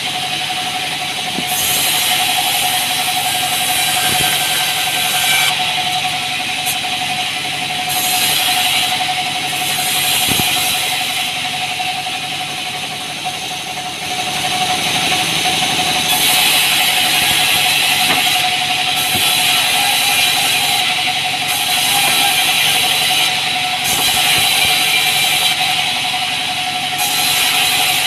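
Sawmill band saw running with a steady whine while its blade rips a small green log lengthwise into boards. A high hiss from the cut comes and goes several times as each pass through the wood starts and ends.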